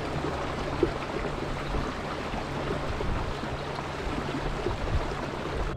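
Water rushing and splashing steadily along the hull of a Hobie Pro Angler fishing kayak under way, with a faint low hum underneath.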